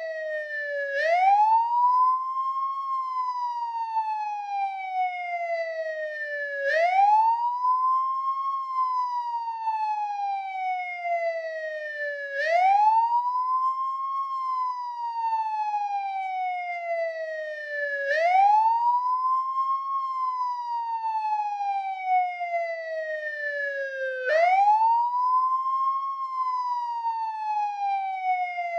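American police car siren on the wail tone: a pitch that rises over about two seconds, then falls slowly, repeating about every six seconds, five times.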